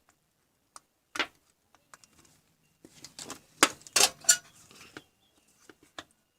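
Irregular clicks and clatters of small hard objects being handled, a few at first and then a dense cluster in the middle.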